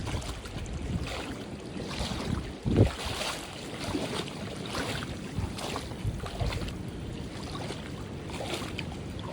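Sea waves washing and splashing against a rocky shore, with wind buffeting the microphone; one louder splash about three seconds in.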